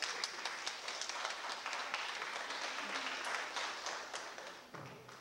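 Audience applauding: a dense patter of hand claps that dies away near the end.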